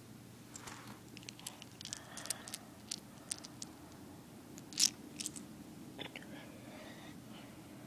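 Small plastic Lego bricks clicking and clattering against each other in a hand: a run of light, irregular clicks, with one louder click about five seconds in.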